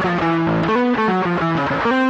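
Rock music in which a distorted electric guitar plays a fast riff, the notes changing several times a second.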